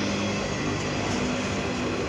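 Freight train rolling by, a steady loud rumble with a low hum underneath.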